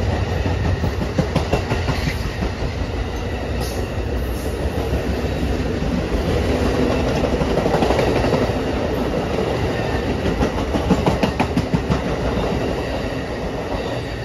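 Train passing close by, its wheels clicking rapidly over the rail joints, with the sound fading away near the end.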